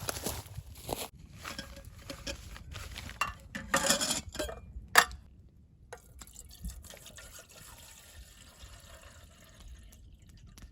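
Liquid being poured and handled, with clinks of cookware and a sharp click about five seconds in, then a quieter steady hiss.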